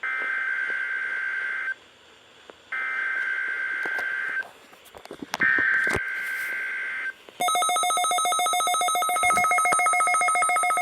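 Three bursts of EAS (SAME) digital header data from a NOAA Weather Radio required weekly test, each a harsh two-tone warble about a second and a half long with short gaps between them. About seven seconds in, a loud, rapidly pulsing electronic alarm starts, as the weather radio receivers are set off by the test signal.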